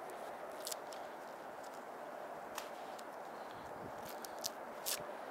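A few sharp clicks and rustles from someone moving through dry grass, over a steady hiss.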